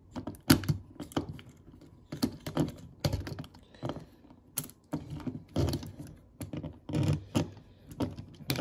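Hard plastic parts of a Transformers Legacy United Leader Class Sandstorm figure clicking and clacking as it is handled and its parts are moved during transformation: a string of irregular sharp clicks and knocks.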